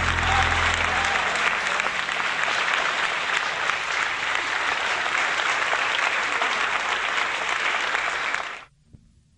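Audience applauding as a song ends, with the band's final chord dying away within the first second. The applause cuts off abruptly near the end.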